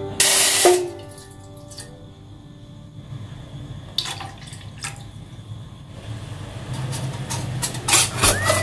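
Water poured from a metal ladle into a small metal steamer pot: a loud splash lasting about half a second at the start, then quieter pouring. Near the end, a few metallic clinks as the perforated steamer tray is set into the pot.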